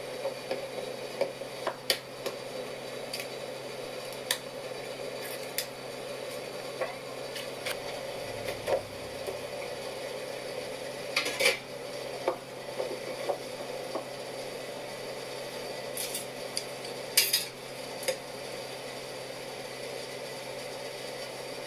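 Cooking utensils clinking and scraping against a pot, with scattered sharp knocks (the loudest about seventeen seconds in) over a steady background hum.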